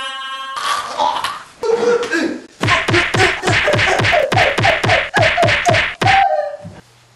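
A mock fight: a fast run of about a dozen whacks, about three a second, each with a short shout or grunt. It follows a second or two of scuffling.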